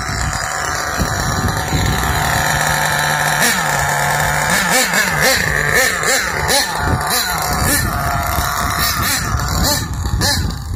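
Two-stroke nitro glow engine of a Tekno MT410 RC monster truck running at a steady pitch for about three seconds, then revving up and down in quick throttle blips as the truck drives by close, settling again near the end.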